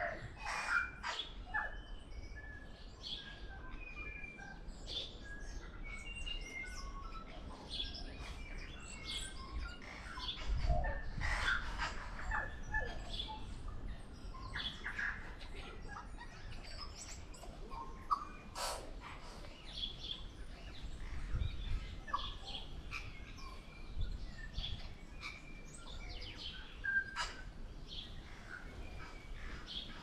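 Tui singing: a varied, broken run of short whistled notes, chirps and sharp clicks.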